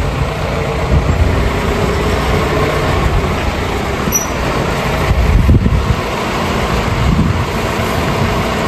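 Tractor engine running steadily as it tips a trailer load of chopped grass silage, the trailer body being raised on its hydraulic ram.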